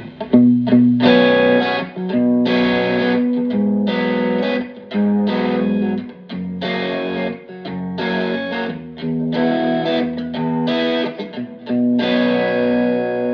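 Fender Telecaster played through a Fender Blues Junior IV tube amp, with the amp's volume near maximum and the master on 2 for a driven tone. Chords are strummed in short rhythmic stabs about a second apart, and the last chord rings out near the end.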